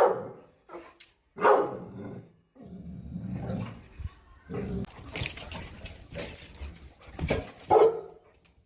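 A dog barking, with short loud barks about a second and a half in and again near the end, and a lower, drawn-out rough sound in between.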